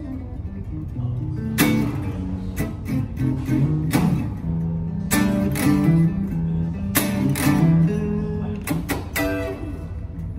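Gibson Les Paul Studio Tribute electric guitar being played: picked single notes and chords in short phrases with brief pauses between them.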